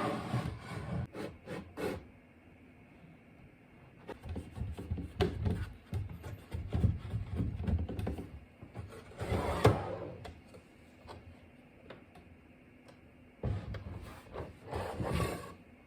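Wooden parts being handled, rubbing and knocking in several spells, with one sharp knock a little under ten seconds in.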